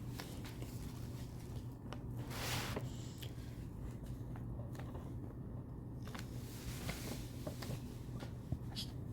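Faint scratching and small taps of writing with a pen, with a brief rushing scrape about two and a half seconds in, over a steady low electrical hum.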